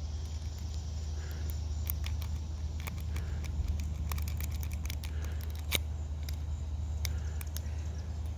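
Small irregular metallic clicks and ticks of homemade stainless-steel picks working the pins of a safe's pin-tumbler lock, with one sharper click a little before six seconds in. A steady low hum runs underneath.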